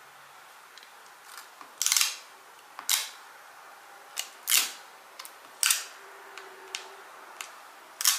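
A dust-absorber sticker being dabbed onto a smartphone's glass screen and pulled off again, giving about five short, sharp, sticky taps, with a few fainter ticks between them.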